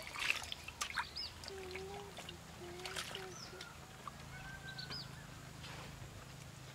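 Stream water splashing and trickling as eggplants are rinsed by hand in a steel bowl and a pot, loudest near the start. Birds call in the background with short steady notes and a few quick high chirps.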